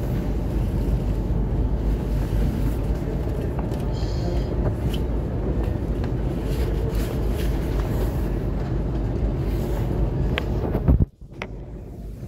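Steady low rumble inside a stationary E2 series Shinkansen car, with a few faint clicks. About eleven seconds in a short knock is followed by a sudden drop in level.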